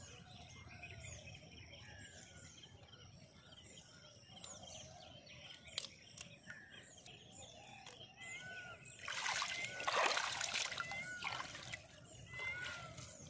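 Water splashing and sloshing as a tilapia caught in a gill net is handled and lifted at the surface, louder for about three seconds from around nine seconds in. Before that, faint water trickle with small birds chirping.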